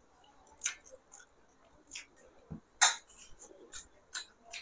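Eating sounds: a scattering of short wet clicks and smacks from chewing and handling food, the sharpest a little under three seconds in.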